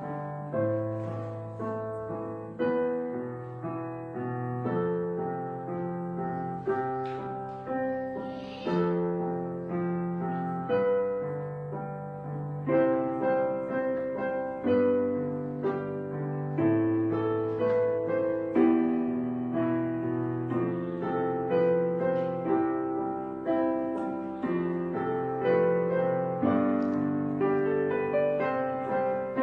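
Piano background music: a melody over low bass notes, each note struck and then fading.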